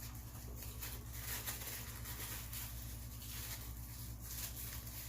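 Quiet room tone: a steady low hum with faint, scattered soft clicks and rustles throughout.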